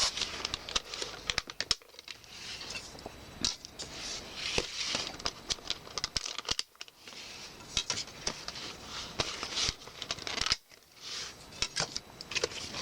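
DVD discs being pried off the snap-in hubs of a fold-out disc case: repeated sharp plastic clicks and taps with light rustling of handling, broken by a few short pauses.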